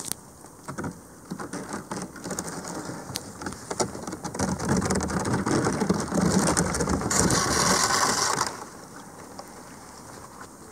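Thin sheets of broken river ice crackling and grinding against a drifting kayak's hull: scattered clicks at first, building about halfway through into a dense, loud crackle that stops abruptly near the end.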